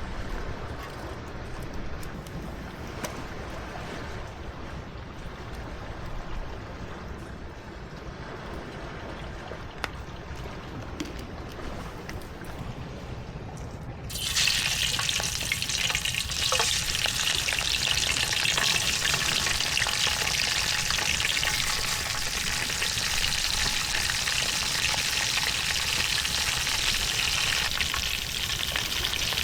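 Food frying: a quiet low background with a few faint clicks, then about halfway through a loud, steady sizzle starts abruptly and keeps going.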